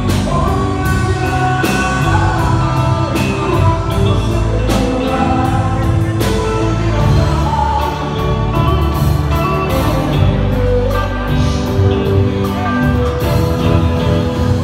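A song playing, with a sung vocal over drums and other instruments.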